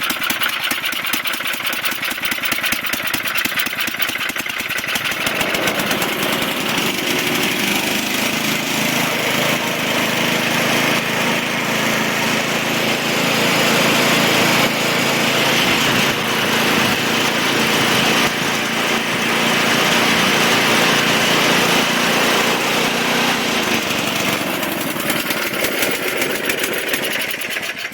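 Toro 421 snowblower's small gasoline engine running steadily just after a one-pull start. Its sound changes about five seconds in.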